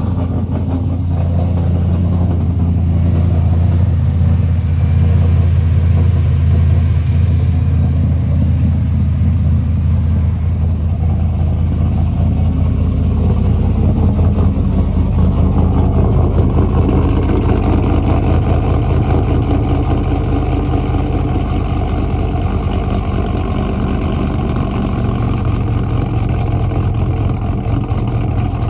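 Built LS V8 (a 5.3 bored to 5.7 with a big cam) running through long-tube headers, an X-pipe and Black Widow Neighbor Hater mufflers, with a deep steady exhaust note. Its tone shifts somewhat about halfway through.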